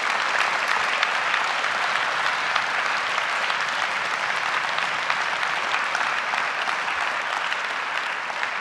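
Large audience applauding steadily, the clapping easing off near the end.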